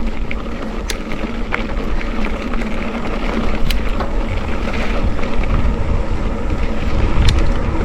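Wind buffeting the microphone of a camera on a moving bicycle, a steady low rumble that grows louder near the end, with a few sharp clicks as the bike rattles over the road.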